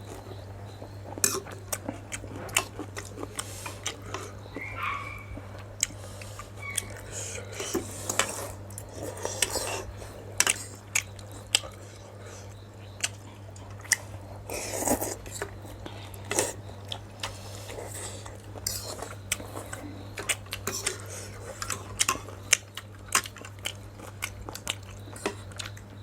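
Cutlery clinking against bowls at irregular intervals as chicken thukpa noodle soup is eaten, with chewing between the clinks. A steady low hum runs underneath.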